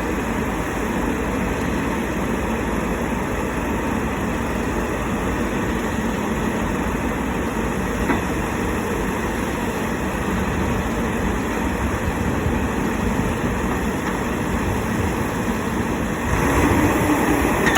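Solar pile driver's engine running steadily, getting louder near the end.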